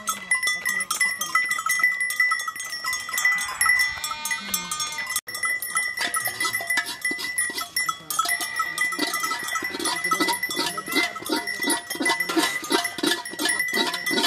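A flock of sheep and goats bleating, with many small bells on the animals clinking and ringing. It is busiest in the second half.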